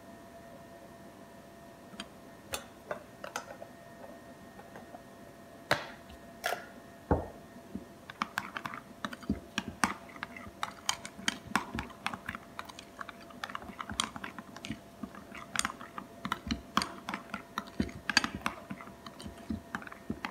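A few scattered sharp taps and a dull thump, then from about eight seconds in a dense, irregular run of crisp clicks and crackles as shredded cabbage is tossed and mixed by plastic-gloved hands in a ceramic bowl.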